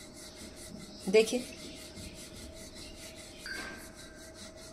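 Wooden rolling pin rolling out vegetable paratha dough on a marble rolling board: a dry, rasping rub repeated in quick, even back-and-forth strokes.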